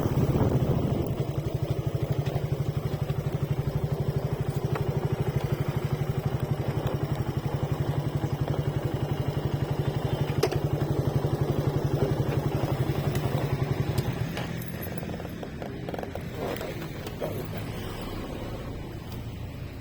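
Motorcycle engine running at a steady speed with a fast, even pulse; about fourteen seconds in it drops off and quietens as the bike slows.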